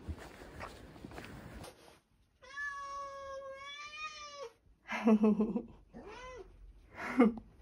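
Domestic cat meowing insistently at its owner at the front door, demanding attention. First comes one long drawn-out meow, then three shorter meows, and the later ones are the loudest.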